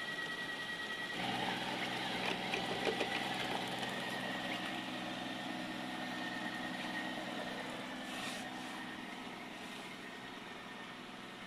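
Robot vacuum cleaner running: a steady motor hum with several fixed tones that shifts in pitch about a second in, with a few light clicks soon after.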